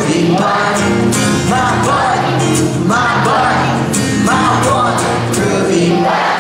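Sing-along song: a man's voice and the audience singing a short repeated refrain over a strummed acoustic guitar, the phrases coming about every second and a half.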